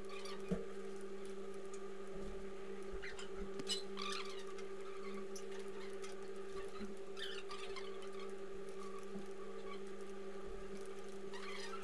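Computer keyboard being typed on: irregular quick key clicks over a steady low electrical hum.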